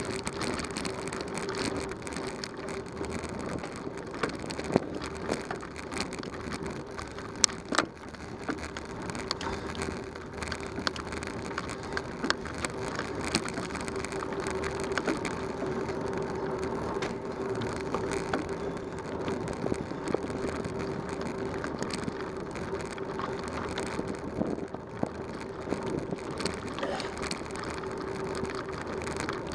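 Bicycle tyres crunching over a gravel road, with constant small rattles and clicks from the bike and a steady hum. A few louder knocks stand out in the first eight seconds.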